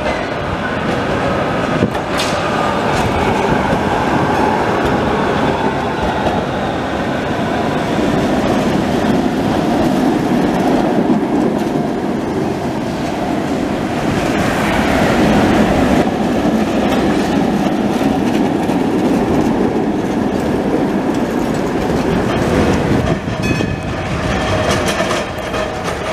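Several trams running in turn along street track: the steady rumble of steel wheels on the rails, with a sharp click about two seconds in.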